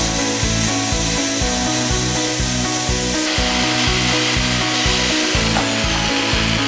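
Electric jigsaw cutting through wood, a steady rasping saw noise that shifts in character about three seconds in, over background music with a steady beat.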